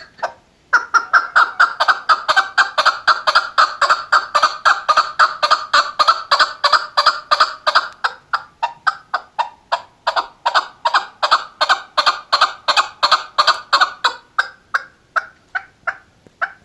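Chukar partridge calling: a long, rapid run of loud clucking chuk notes, about four or five a second, starting about a second in and spacing out toward the end.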